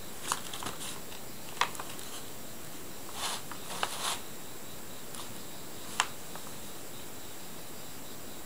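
Brown paper bag crinkling and rustling in short scattered snatches as two cats wrestle on it, with a couple of sharp crackles, over a steady faint hiss.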